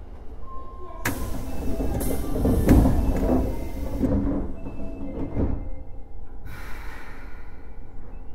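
Inside an unrenovated Osaka Metro 23 series subway car: a sudden loud hiss of air about a second in, mixed with door and car noise, and a second, shorter hiss near the end.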